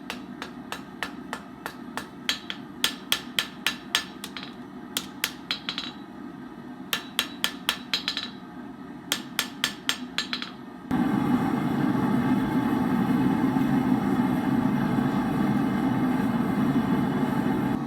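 A hammer striking steel in quick runs of ringing blows, likely as the wrench is worked into a knife. About eleven seconds in, the hammering stops and a steady, louder rushing machine noise begins abruptly.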